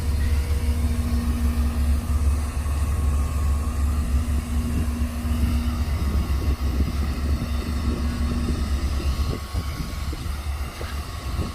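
Heavy diesel engine of earthmoving machinery running with a steady deep rumble and a held hum, easing off a little about nine seconds in.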